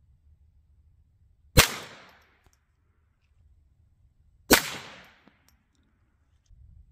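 Two shots from a Ruger 10/22 .22LR semi-automatic rifle, about three seconds apart, each a sharp crack with a short echo trailing off.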